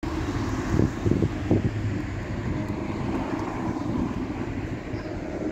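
Wind buffeting the microphone: a steady low rumble with a few stronger gusts about a second in.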